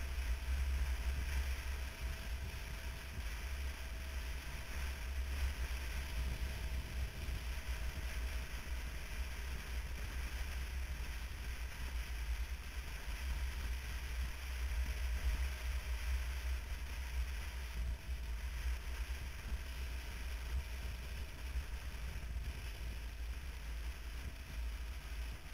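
Wind buffeting the microphone of a camera mounted on a moving motorcycle, a steady low rumble, with the motorcycle's running and road noise underneath.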